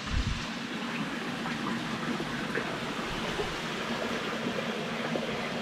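Steady rush of running water, with a faint steady hum beneath it and a few small ticks.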